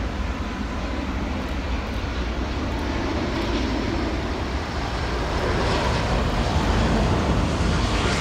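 Jet engines of an Airbus A350-1000 on final approach, passing low overhead: a steady roar and rumble that grows louder toward the end.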